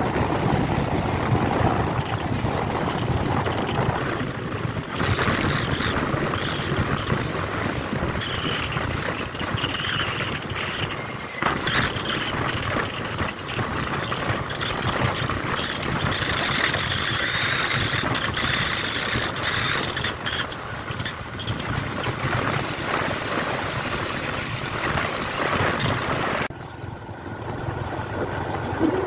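Motorcycle riding along a road: steady wind rushing over the microphone, with the engine running underneath. The wind noise drops off suddenly near the end.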